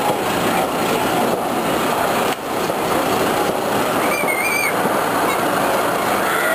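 Maurer Söhne X-Car roller coaster train climbing the vertical lift tower, a loud, steady mechanical running noise. About four seconds in there is a brief wavering, whistle-like tone.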